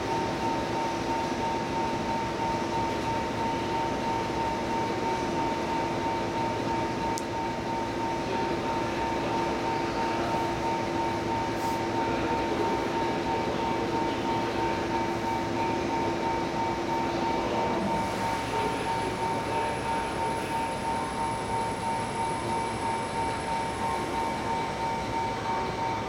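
JR 211 series electric train standing at the platform, its on-board equipment giving a steady hum with two high, unchanging tones. A lower drone in the mix stops about two-thirds of the way through.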